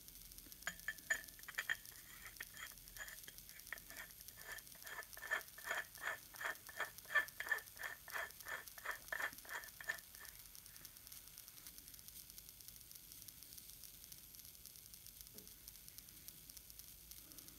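A rapid, even run of small clicks, about three a second, that stops about ten seconds in: a threaded part of an airgun air-cylinder valve assembly being screwed in by hand.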